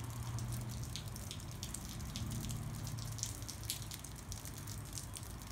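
Monsoon rain falling steadily, with many close drips and taps of water, over a low steady rumble.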